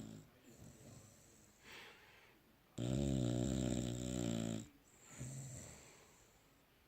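English bulldog snoring in his sleep: a long pause with only a faint breath, then one loud, pitched snore lasting about two seconds, followed by a softer breath and another pause. The gaps are the dog seeming to forget to breathe between snores.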